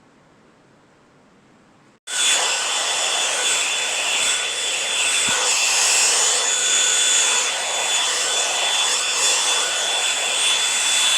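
One-step hot air brush, a blow dryer with a detangling-brush head, running: a steady rush of air with a high steady whine, switching on abruptly about two seconds in after a faint hiss.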